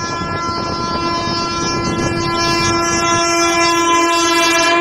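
WAG-7 electric locomotive's horn sounding one long, steady blast as the freight train approaches on the next track, over a steady rumble of the train.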